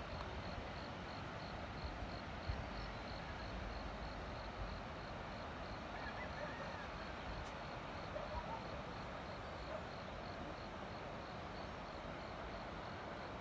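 Steady chorus of insects with a faint, evenly repeating high chirp, over a low rumble of wind on the microphone.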